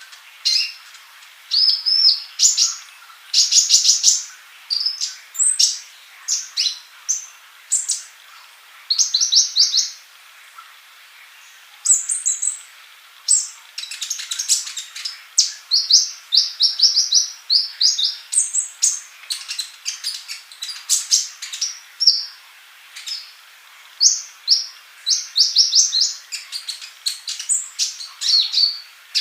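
Male olive-backed sunbird singing: short, quick phrases of rapid high-pitched trills and chirps, repeated with brief pauses between them.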